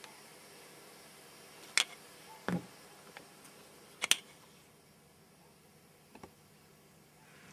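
Handling noise on a camcorder: a few sharp clicks and knocks, the loudest about two seconds in, a lower knock just after, and a double click about four seconds in, over a faint steady hiss.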